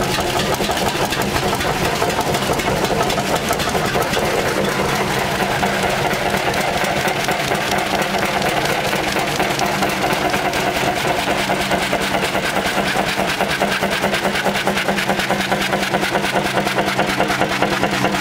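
Several old stationary hot-bulb engines running together, a steady stream of rapid, overlapping exhaust beats and mechanical beats.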